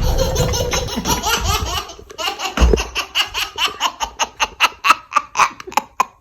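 Baby belly-laughing hard, set off by a door slam, the laugh breaking into quick separate bursts of about four a second in the second half. A low thump sounds about two and a half seconds in.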